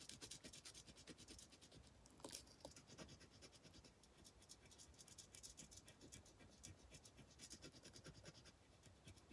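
Faint scratching of a metal-tipped stylus rubbing a dry-transfer numeral onto a painted clock dial, with a couple of light ticks.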